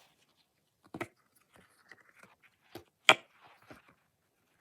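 Handling noise from a small octopus plush puppet being turned over in the hands: a few short rustles and soft knocks, the loudest about three seconds in.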